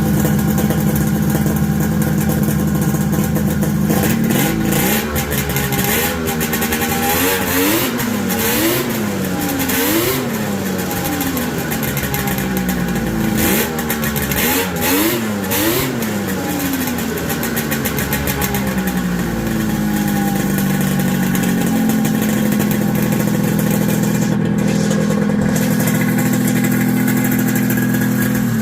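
1986 Polaris Indy 600 snowmobile's ported two-stroke engine on race pipes, idling and then revved in repeated quick blips that rise and fall for about twelve seconds. It then settles into a steady, faster run.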